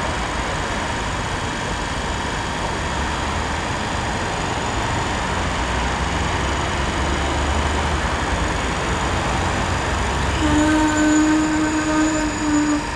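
A steady low engine rumble, then a single horn blast of about two seconds near the end, one steady tone.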